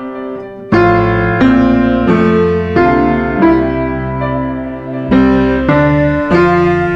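Background music: a slow piano tune, single sustained notes struck about every two-thirds of a second.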